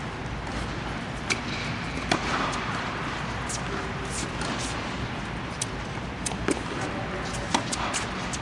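Tennis ball being struck by rackets and bouncing on a hard court during a doubles rally: a series of sharp pops at irregular gaps of a second or so, over a steady even background noise.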